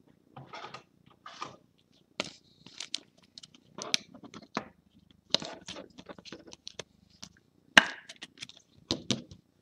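A trading card and clear plastic card sleeves handled close to the microphone: irregular rustling, scraping and sharp clicks as the card is slid into a protective sleeve, with one louder click late on.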